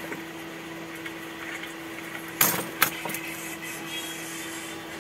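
Two sharp metal clacks about two and a half seconds in, a fraction of a second apart, from hand tools being handled on a workbench, over a steady background hum.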